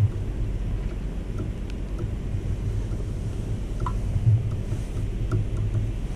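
Steady low rumble of wind noise on the microphone, with a few faint small clicks.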